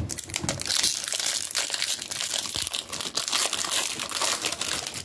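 Foil booster pack wrapper crinkling, handled and opened by hand, a dense irregular crackle.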